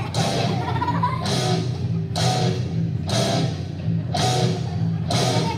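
Loud rock music playing, with a heavy drum beat striking about once a second over low sustained chords.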